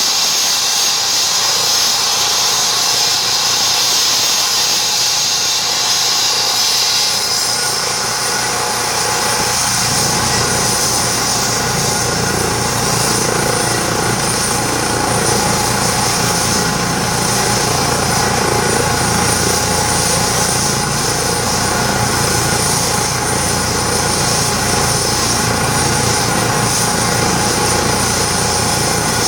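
A small aircraft's engine and propeller running steadily and loud. About seven seconds in, the high hiss drops away and a deeper drone comes up, holding steady after that.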